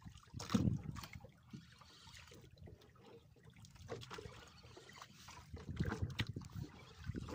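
Water lapping against a small fishing boat's hull, with irregular low knocks and bumps on the boat. One knock comes about half a second in, and a denser run comes near the end.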